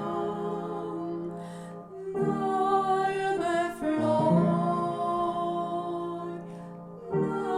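Voices singing a Romanian Christmas carol (colindă), with long held notes in two phrases, each broken by a short breath about two seconds in and near the end.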